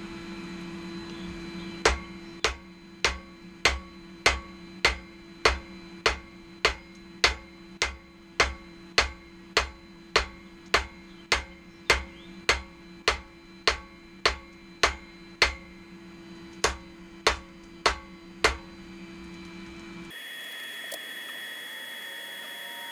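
Hand hammer striking red-hot steel on an anvil: about thirty evenly paced blows, a little under two a second, which then stop. The blows are drawing down an over-thick knife blank.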